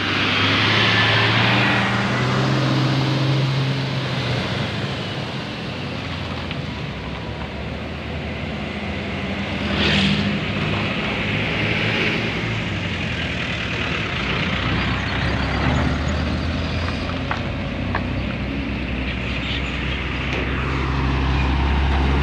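Large diesel intercity buses passing close on the road: steady engine running and tyre noise, loudest in the first few seconds, with a short hiss about ten seconds in, and another heavy vehicle drawing near at the end.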